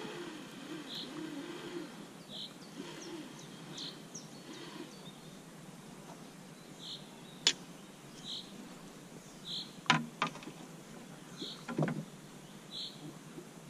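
A few sharp knocks of fishing gear being handled against a plastic rowboat, two of them close together about ten seconds in. A short high chirp repeats about once a second throughout.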